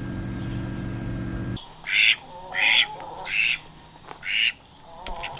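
Steady hum of an incubator's fan that cuts off suddenly about a second and a half in, followed by four short, harsh poultry squawks, evenly spaced.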